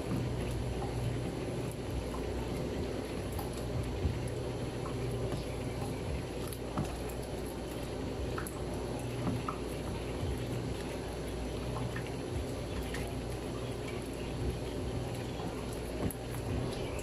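Soft wet squelching and scraping as a spatula presses and folds freshly churned butter against a wooden board, squeezing out the leftover buttermilk, with a few light clicks, over a steady low hum.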